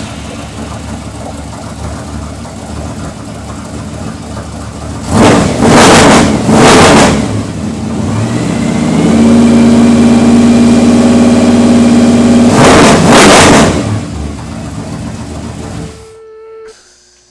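Supercharged 496 big-block V8 exhaling through an AERO AR25 straight-through resonator. It idles, is blipped twice about five and six and a half seconds in, then revs up and is held at high rpm for several seconds. It then drops back to idle and cuts off near the end.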